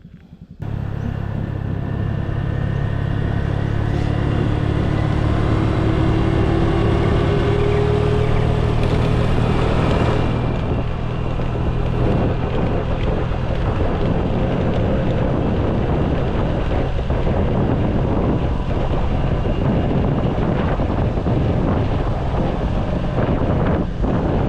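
An engine running steadily under heavy wind noise on the microphone. Its pitch climbs slowly for a few seconds near the middle.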